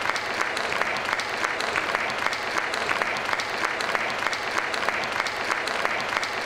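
Audience applauding steadily, with many separate hand claps standing out.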